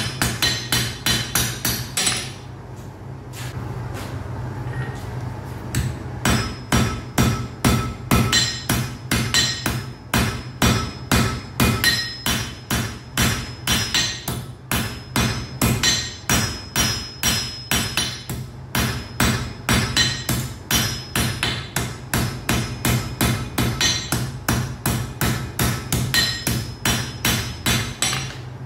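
Blacksmith's hammer striking iron on an anvil in quick, ringing blows, about three a second. The hammering stops about two seconds in, then resumes after a few seconds and keeps a steady rhythm.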